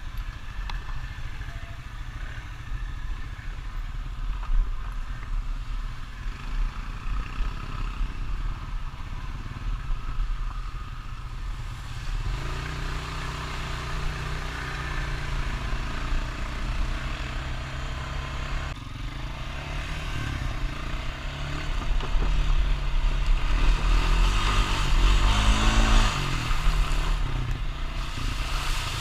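Honda Rancher ATV engine running and revving as it is ridden through mud, its pitch climbing and falling several times. The loudest revving comes in the last third, together with a rushing hiss.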